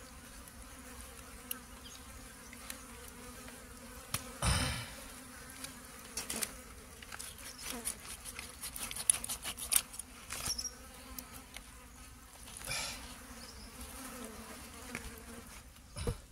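Insects buzzing steadily, over scattered soft clicks and scrapes of hands and a knife working raw fish flesh, with one louder brief scrape about four and a half seconds in.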